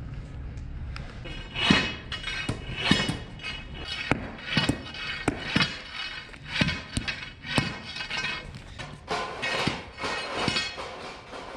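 Steel bar striking concrete, breaking off the heads of Tapcon concrete screws left in the barn floor. The clinking, ringing impacts come irregularly, about one or two a second, starting about a second and a half in. Background music plays along.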